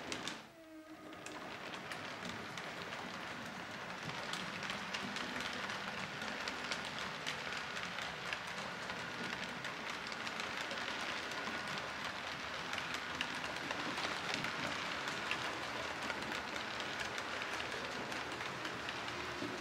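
H0-scale model passenger coaches rolling along the layout's track: a steady metallic rattle dense with rapid small clicks of the wheels over rail joints, growing louder about four seconds in.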